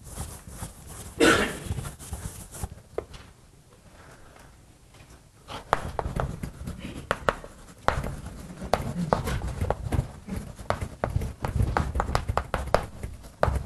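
Quick, irregular taps and knocks, several a second, start about five and a half seconds in after a quiet stretch; a short rustling noise comes about a second in.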